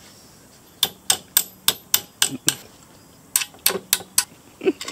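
Sharp metal clicks, a few a second in two runs, from hand tools working on a partly disassembled Honda GX35 engine.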